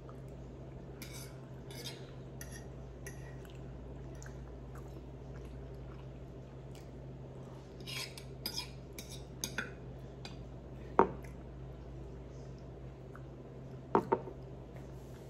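Metal spoon scraping and clinking on a plate while someone eats, with scattered soft scrapes, a run of them about eight seconds in, one sharp clink about eleven seconds in and two quick clinks near the end.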